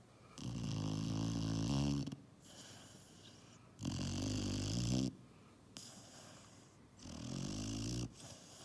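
Puppy snoring in its sleep: three long snores, roughly three seconds apart, each a low buzzing snore with a breathy hiss over it.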